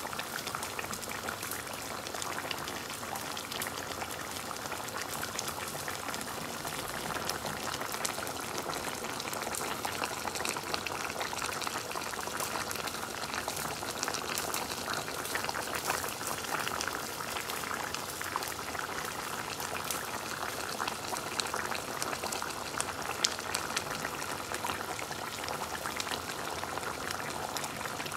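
Chicken and bottle gourd curry bubbling steadily in a nonstick pan, a constant fine crackle of bursting bubbles in its liquid, with one sharper pop late on.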